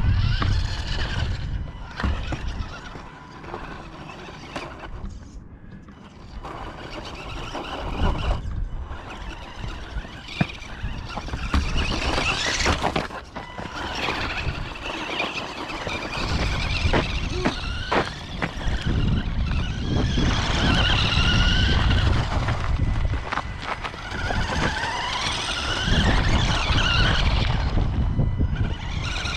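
Small electric radio-controlled car driving. Its motor whines, rising and falling in pitch as it speeds up and slows, over rumbling tyre noise and scattered sharp knocks. It goes quieter for a few seconds early in the run.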